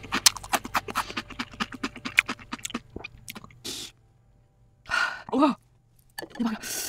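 Ghost-pepper potato chip crunched close to the microphone, with rapid crisp crunches for about the first three seconds. After a short silence come a pained, voiced gasp about five seconds in and another near the end, a reaction to the chili heat.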